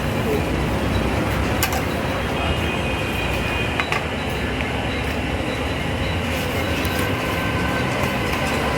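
Steady mechanical rumble as a hydraulic press bears down on a bent roller shaft to straighten it, with a couple of sharp metallic clicks.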